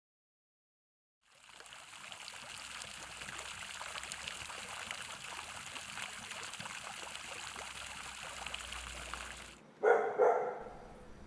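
Water running steadily from a stone wall fountain, fading in about a second in and cutting off abruptly near the end, followed at once by a dog barking twice.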